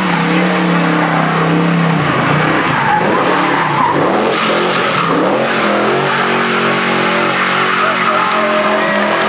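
Black muscle car's engine revving hard while its rear tyres squeal and spin in a smoky burnout, the car turning donuts. The revs dip and climb again between about two and five seconds in, then hold high.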